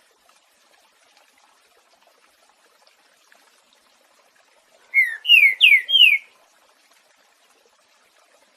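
Green-winged saltator (trinca-ferro) singing one short phrase of its boiadeiro song: four quick, loud whistles, each sliding down in pitch, about five seconds in. A faint trickle of water runs underneath.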